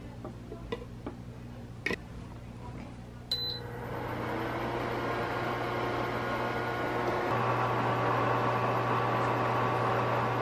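Single-burner induction cooktop gives a click and a short beep as it is switched on, then a hiss builds up and holds steady over the cooktop's low hum: the lidded pot of broth heating up toward a boil.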